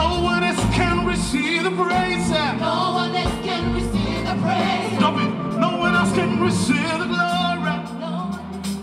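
Live gospel band: a man sings the lead into a microphone over electric bass, keyboard and drums, with backing singers.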